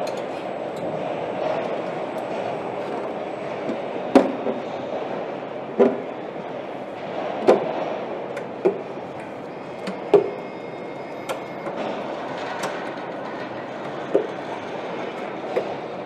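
Steady factory-floor hum with a series of sharp metallic clicks and clanks, about eight spaced a second or two apart, from the aluminium battery housing cover being handled and set on its assembly jig.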